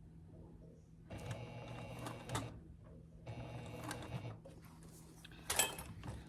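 Sewing machine stitching in two short runs of about a second each as a strap connector is top-stitched around its edge, with a short pause between them. A sharp click comes near the end.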